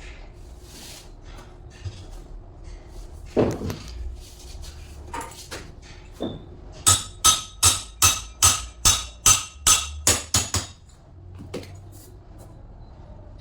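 A hammer striking metal: a few separate knocks, then about ten quick blows, roughly three a second, each with a ringing metallic note. These are typical of driving a bearing or pulley on or off an alternator shaft.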